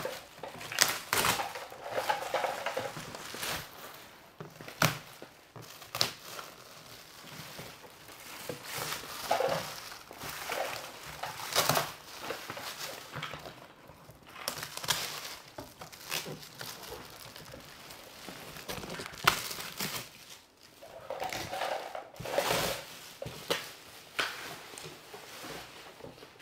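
Shiny metallic gift-wrap foil being torn and crumpled off a boxed present, in irregular crinkling bursts.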